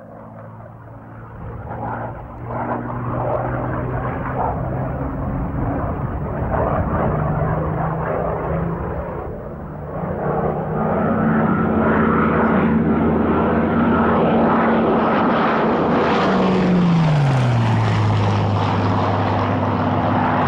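Hawker Hurricane's Rolls-Royce Merlin V12 engine and propeller in flight, growing louder as the fighter comes in. About three-quarters of the way through, the pitch drops smoothly as it passes close by, and it carries on at the lower pitch.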